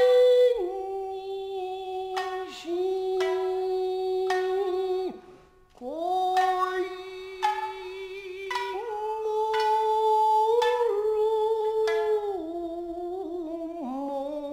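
Traditional Japanese dance music: a voice holding long notes that slide slowly in pitch, punctuated by single plucked string notes. The music breaks off briefly about five seconds in, then resumes.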